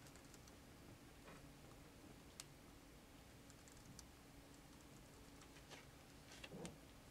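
Near silence: room tone with a faint steady hum and a few scattered faint clicks.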